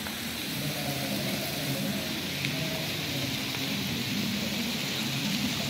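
Outdoor city ambience: a steady hum of traffic with the faint voices of a crowd in the distance.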